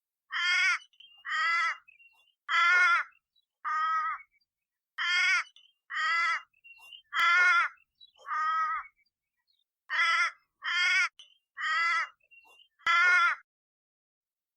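Harsh, rasping animal calls: twelve of them in three sets of four, each about half a second long.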